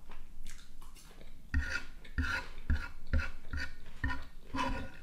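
Metal fork scraping and knocking on a wooden cutting board, gathering leftover salad, in a run of about seven short strokes starting about a second and a half in.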